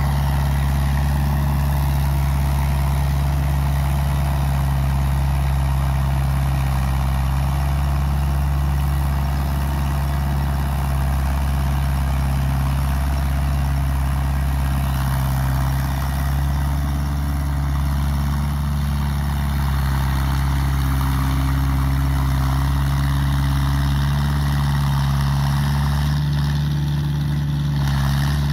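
New Holland TD80 tractor's four-cylinder diesel engine running steadily under load as it pulls a blade through paddy-field soil.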